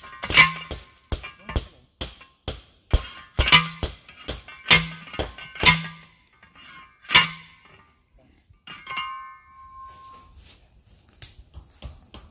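Manual post driver pounding a steel T-post into the ground: a run of loud metal clangs, about two a second, ending about seven seconds in. A lighter ringing clink follows a couple of seconds later.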